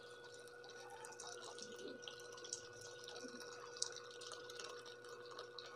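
Water poured from an electric kettle into an aluminium cooking pot of beef pieces, a faint steady splashing and dribbling into the broth.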